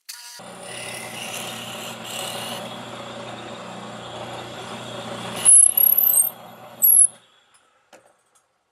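A machine runs with a steady low hum and mechanical noise. About five and a half seconds in comes a loud, high-pitched squeal lasting over a second, and then it cuts off.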